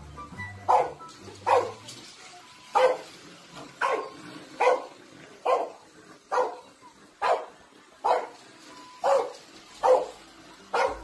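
A dog barking over and over in a steady rhythm, about a dozen single barks a little under a second apart.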